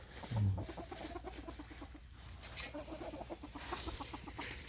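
Backyard hens clucking softly, a steady run of short clucks, with one brief low sound about half a second in.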